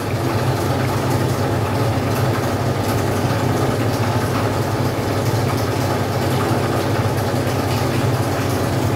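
Hot oil sizzling steadily as rounds of sweet semolina-and-flour dough deep-fry in a pan, over a steady low hum.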